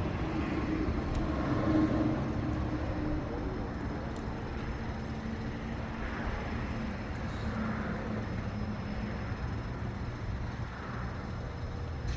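Straight-piped car exhaust, catalytic converters gutted and mid mufflers and resonators removed, running with a steady low rumble.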